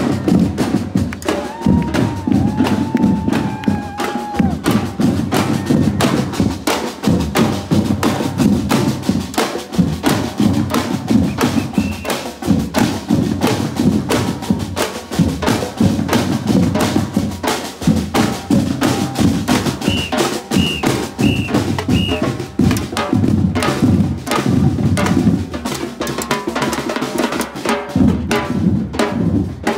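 A batucada street drum group plays a fast, steady rhythm, with deep surdo bass drums and snare drums struck with sticks and mallets. Four short high peeps sound over the drumming about two-thirds of the way through.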